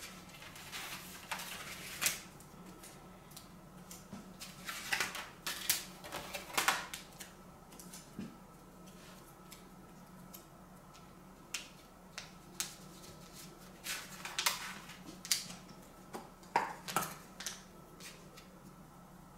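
Scattered clicks, taps and light rustles of thin wood veneer pieces and small hand tools being handled on a workbench, some in quick clusters, over a faint steady hum.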